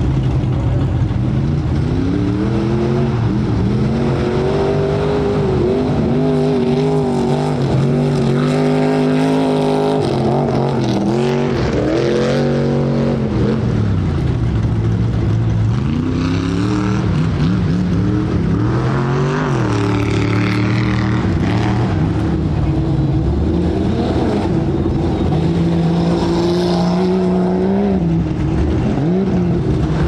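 Tuff truck's engine revving hard and easing off again and again, its pitch rising and falling repeatedly under load.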